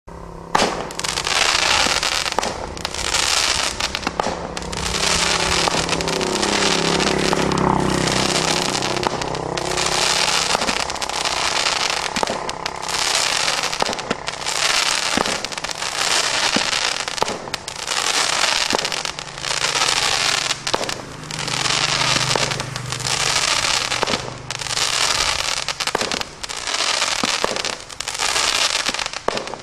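Extra FX 'Fishes and Seahorses' firework cake firing shot after shot, a launch thump about every second, each followed by fizzing and crackling from its silver fish and crackling-tail effects.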